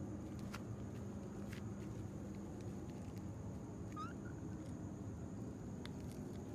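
A cat gives one short, rising meow about four seconds in, over a steady low background hum.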